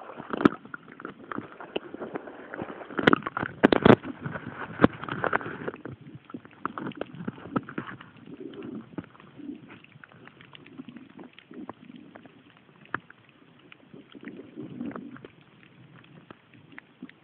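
Muffled underwater sound from a camera held below the surface: loud knocks and splashes in the first few seconds, then quieter water noise with soft low hums every few seconds and small scattered clicks.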